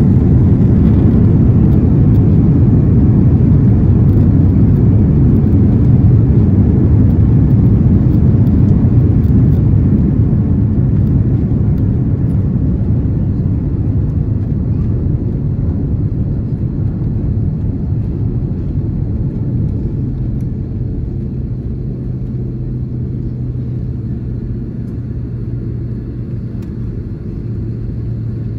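Airbus A330-300 landing rollout heard from inside the cabin, ground spoilers up: a loud, deep rumble from the engines and the wheels on the runway. It eases off over the second half as the airliner slows, and a steady low hum comes in about two-thirds of the way through.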